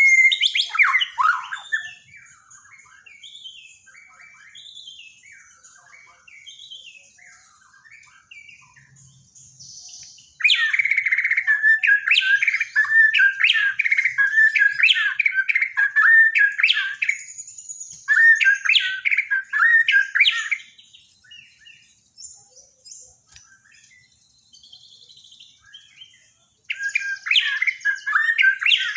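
White-rumped shama (Borneo murai batu) singing. Loud runs of rapid, repeated whistled and chattering notes come in long phrases, the biggest lasting about ten seconds, with softer twittering in the pauses between them.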